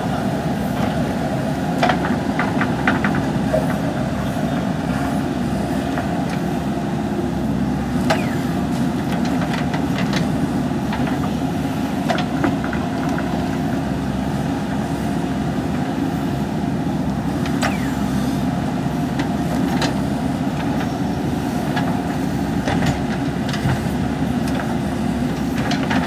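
JCB 3DX backhoe loader's diesel engine running steadily under working load as the backhoe digs. Scattered short clanks and scrapes are heard as the bucket works through stony soil.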